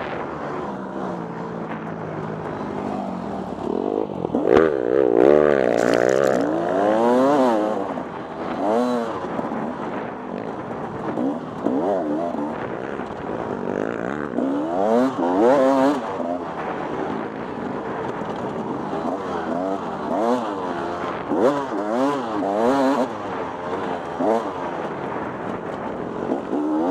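Off-road dirt bike engine in a harescramble, revving up and falling back over and over as the throttle is opened and closed through the gears, with a few sharp knocks and scrapes along the way.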